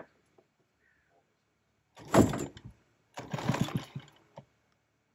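Small outboard motor pull-started twice on its recoil cord, each pull giving a short burst of engine noise under a second long that dies away without it running on. These are the first start attempts on an outboard that was dunked upside down in the sea when its dinghy capsized and has since been dried and cleaned out.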